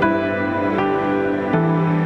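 Calm stock background music, a soft corporate track of held notes that change about every three-quarters of a second.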